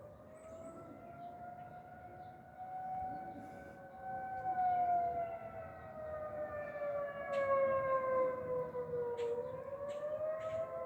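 Outdoor storm-warning sirens wailing, with at least two tones slowly rising and falling over several seconds and crossing each other, the sound of a severe-storm alert being sounded.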